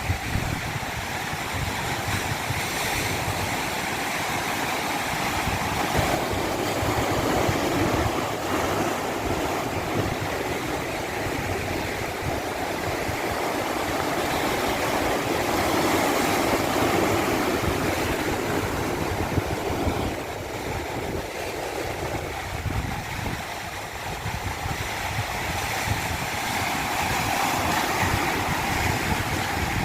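Water rushing steadily without a break, swelling and easing slowly every several seconds.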